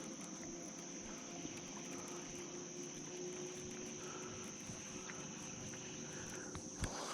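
Insects droning steadily in one high, continuous tone, with a faint low hum underneath and a single light knock near the end.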